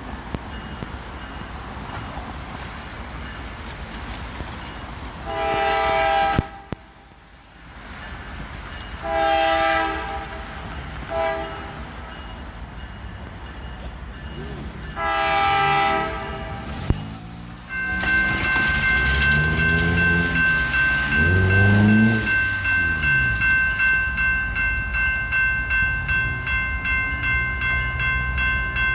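Diesel freight locomotive's air horn sounding the standard grade-crossing signal: two long blasts, one short and one long, over a steady low rumble. About two-thirds of the way in, the crossing's warning bell starts ringing rapidly and keeps on, as the train's rumble grows louder.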